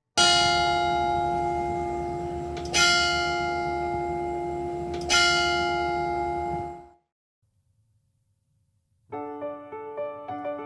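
A bell struck three times, about two and a half seconds apart, each strike ringing on over the last until the ringing cuts off about seven seconds in. After a short silence, piano music begins near the end.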